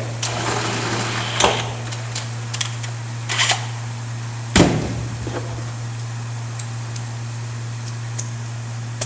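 Clicks and knocks of small metal parts being handled and fitted, the loudest a single knock about four and a half seconds in, with fainter ticks after it. Under them runs a steady low hum, the air compressor ticking over at full pressure.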